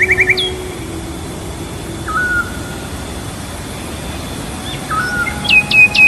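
Birds chirping and trilling over a steady rushing hiss: a quick trill at the start, single short chirps about two and five seconds in, and a loud run of whistled notes near the end.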